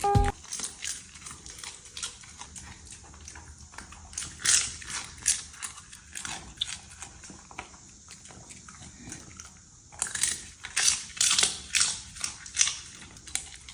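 A dog chewing and crunching dried small fish treats, with irregular crisp crunches that thin out in the middle and come thick and loud again for the last few seconds.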